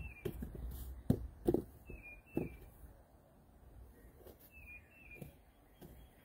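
Hands patting and pressing dough on a floured work surface: a few soft thumps in the first two and a half seconds, then quieter handling. A bird chirps short calls now and then in the background.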